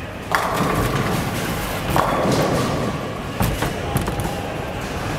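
Radical Grease Monkey bowling ball striking the pins a third of a second in, with the pins clattering and scattering. Further knocks follow as pins fall and the pinsetter's sweep bar comes down, with one pin left standing.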